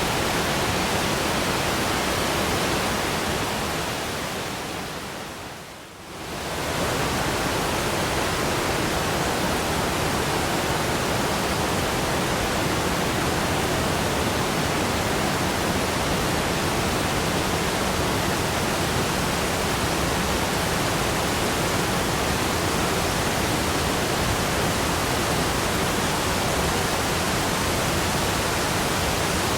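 Waterfall: a steady, even rush of falling water. It fades down from about three seconds in to a low point near six seconds, then comes straight back up within a second and holds steady.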